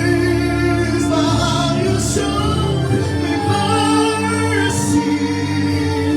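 Live gospel worship music: a band holding sustained chords with singing voices over it.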